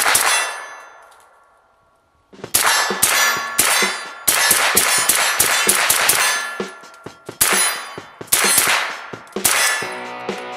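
Shots from a suppressed MP5-style carbine, each sharp crack followed by a metallic ring: one shot, a pause of about two seconds, then a fast string of shots, two or three a second. Background music comes in near the end.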